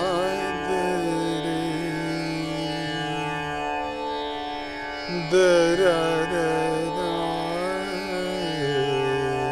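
A man singing a slow Indian classical vocal line with wavering, ornamented glides over a steady drone; the voice breaks off briefly about four seconds in, then comes back more strongly.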